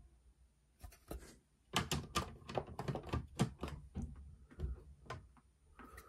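Hard plastic PSA card slabs clacking: a quick, irregular run of clicks and taps as the cases are set down on a stack and picked up again.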